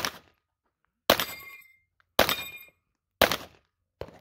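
Pistol shots from a 9mm Glock with a 34 slide in a Flux chassis, fired one at a time about a second apart: four sharp cracks, each with a short ringing tail, then a fainter one just before the end.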